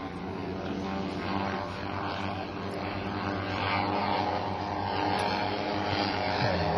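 Large radio-controlled B-29 model flying on its four chainsaw-derived two-stroke engines: a steady, many-toned propeller drone that grows slowly louder toward the end.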